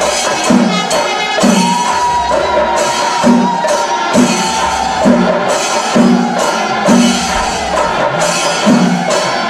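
Kerala temple percussion ensemble playing for a procession: drums beat a steady rhythm under clashing small hand cymbals, and one long high note is held for about a second and a half about two seconds in.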